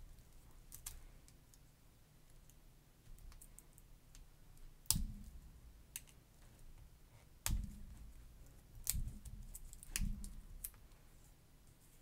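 Scattered sharp plastic clicks and light knocks, about five over several seconds, as the cap of a small plastic paint bottle is twisted off and the bottle is handled.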